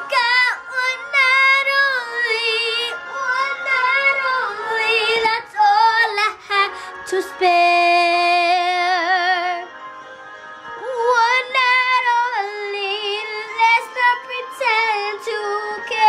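A young girl singing a slow soul ballad alone without accompaniment, with a wide vibrato on long high notes. About seven seconds in she holds one long wavering note, then the singing drops briefly quieter before she carries on.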